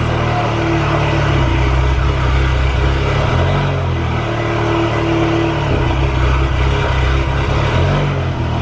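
Volkswagen Golf R (MK7) turbocharged 2.0-litre four-cylinder idling on a cold start, its idle pitch wavering slightly. It runs without the nasty noise it used to make, a cure the owner puts down to the new camshaft spool valves.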